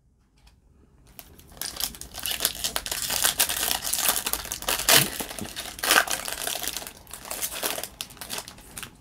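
Foil wrapper of a Topps baseball card pack crinkling and tearing as it is ripped open by hand: a dense crackle that starts about a second in, with a couple of sharper rips in the middle, easing off near the end.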